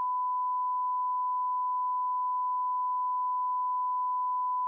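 Steady electronic beep: one pure tone at about 1 kHz, held unchanged at a constant level, like a test tone.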